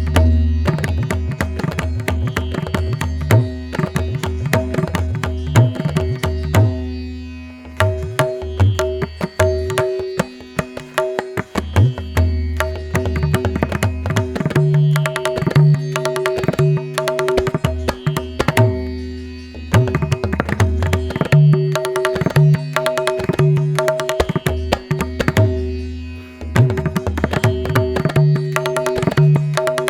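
Background music: quick hand-drum strokes in a steady rhythm over sustained drone notes and a low bass line, briefly dropping out a few times.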